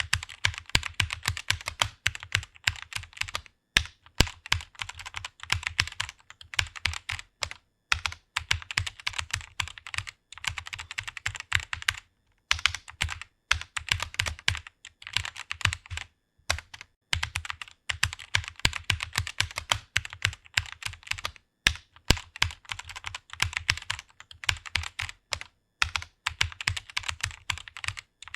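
Computer keyboard typing: rapid runs of keystrokes in quick bursts, broken by short pauses of up to about a second.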